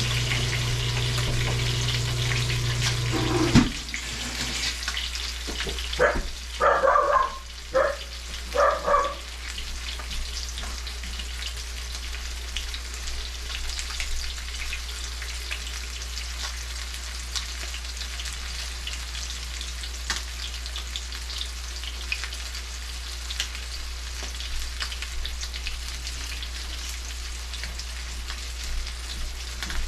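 Fish and bammy sizzling and crackling in a pan of hot oil, a steady fry with fine pops throughout. A steady hum stops with a knock about three and a half seconds in, and a few short sounds follow a couple of seconds later.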